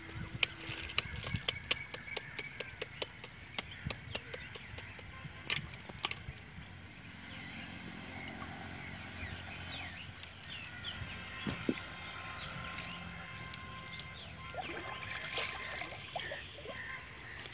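Small fish being shaken out of a bamboo box trap into an aluminium pot: a run of sharp clicks and taps as the fish drop and flap against the metal and the slatted trap rattles. The taps come thickest in the first six seconds and are scattered after that.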